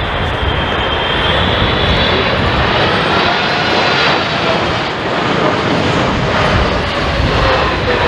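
Twin GE90 turbofans of a Boeing 777-300ER on low final approach passing close by: a loud, steady jet rumble with whining tones that slide down in pitch in the second half as it goes past.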